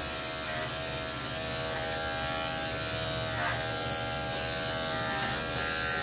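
Corded electric dog-grooming clipper running with a steady buzz.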